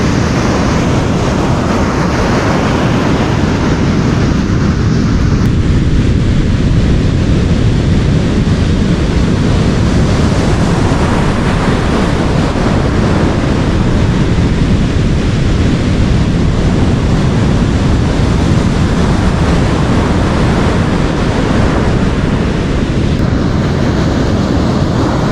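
Rough surf washing on a beach, with wind buffeting the microphone: a loud, steady noise with no distinct events.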